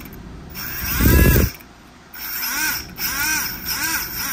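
Small brushless motor spinning a 3D-printed jet-pump impeller in short throttle bursts, its whine rising and falling in pitch. The first burst, about a second in, is the loudest and comes with a deep rush. Then come several quicker rev-ups about two-thirds of a second apart.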